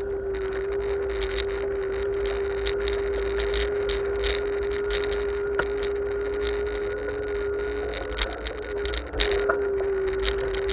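Ride noise from a bicycle-mounted camera while cycling: a steady whine at one fixed pitch, low wind and road rumble, and frequent short rattles and clicks from bumps in the road. One sharper knock comes about nine seconds in.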